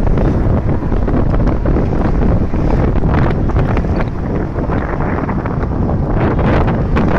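Wind buffeting the microphone on a moving motor scooter: a loud, steady rumble mixed with road and vehicle noise.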